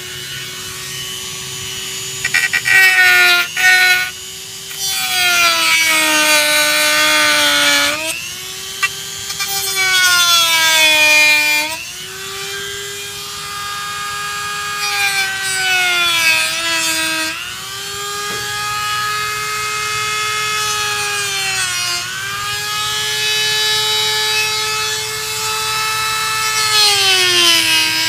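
Dremel rotary tool with a cutting bit cutting into the window frame to widen the crank hole. Its whine drops in pitch each time the bit is pressed into the material and rises again as it eases off, with a gritty grinding noise during the cuts.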